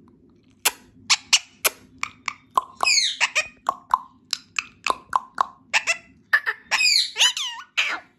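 Indian ringneck parakeet chattering: a quick run of sharp clicks and short squeaky calls, with whistled up-and-down glides about three seconds in and again near the end.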